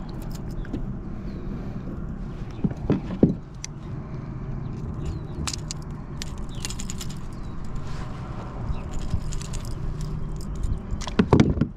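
Irregular clicks, knocks and light rattles of fishing tackle and kayak handling over a steady low hum, with louder knocks about three seconds in and again near the end.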